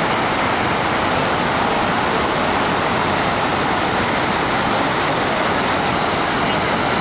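Steady roar of Niagara Falls, the American Falls pouring into the churning river below: a dense, even rush of falling water that does not change.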